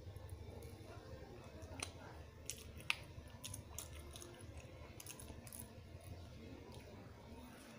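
Faint chewing of a bite of toasted grilled tuna sandwich: scattered soft crunches and mouth clicks over a low steady hum.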